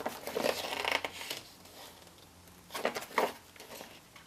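Paper rustling as the sheets of a printed instruction manual are handled and turned: a burst of rustling in the first second or so, then two short rustles about three seconds in.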